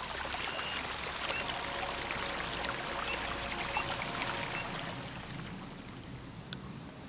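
Small forest stream trickling and splashing over the forest floor, a steady rush of running water that softens toward the end.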